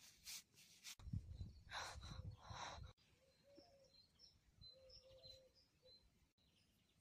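Quiet outdoor ambience: a brief low rumble in the first half, then a few faint, short bird chirps in the second half.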